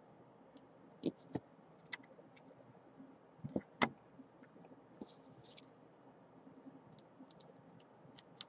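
Faint, scattered light clicks and a brief crinkle of thin plastic about five seconds in, from a trading card being handled in a clear plastic sleeve.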